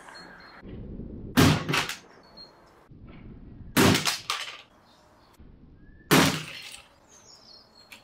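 A thrown hard-plastic action figure clattering down three times, each a sharp crack followed by a short rattle of bounces, about two and a half seconds apart.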